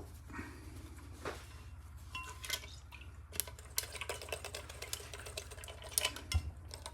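Scattered light clicks, taps and clinks of small metal parts and tools being handled and set down while a British Seagull outboard motor is taken apart by hand, over a steady low hum.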